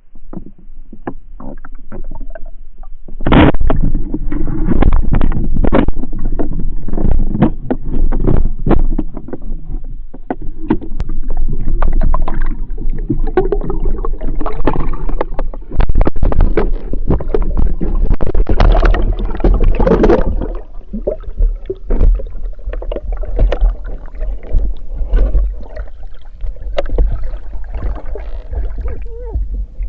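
Water sloshing and splashing close to the microphone, with a heavy low rumble and many irregular knocks and bumps, starting suddenly about three seconds in.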